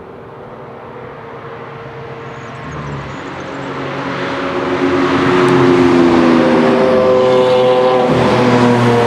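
Lamborghini Aventador's V12 engine at speed on a racetrack, approaching. It grows steadily louder over the first five seconds, then stays loud and close.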